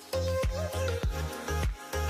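Music with a steady electronic beat: deep bass notes, a melody line, and drum hits that drop in pitch, a little under two a second.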